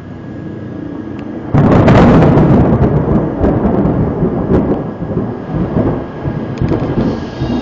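A clap of thunder. A low rumble builds, then a sudden loud crack comes about a second and a half in, followed by a long rolling rumble with crackles that slowly dies away.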